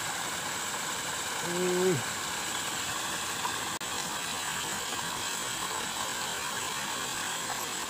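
Fishing reel being wound in with a steady mechanical whirr as a hooked fish is brought to the bank.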